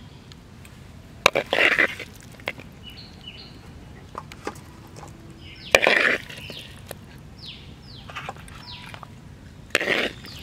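A spatula scraping and scooping chicken fry out of a cooking pot three times, about a second and a half in, at six seconds, and near the end. Birds chirp in the background between the scrapes with short, falling high calls.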